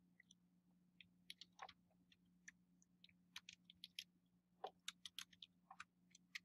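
Faint, quick, irregular clicks of computer keyboard keys being typed.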